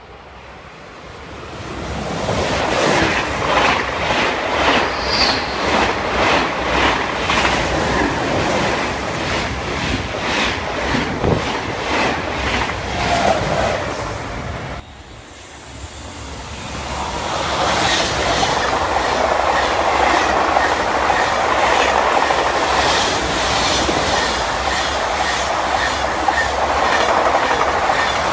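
High-speed TGV trains passing through a station at speed, two passes one after the other. Each builds up over a couple of seconds into a loud rush with the even, repeated clatter of wheels over the track. There is a short dip about halfway between them.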